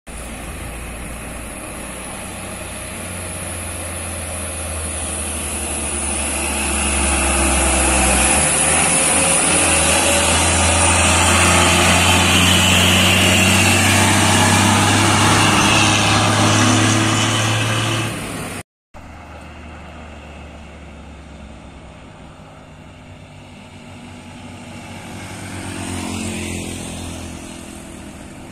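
Diesel engine of a heavily loaded cargo truck labouring up a hill, its low drone growing louder as it passes close by. After a sudden cut, the fainter engine of another loaded truck climbing toward the listener, swelling briefly near the end.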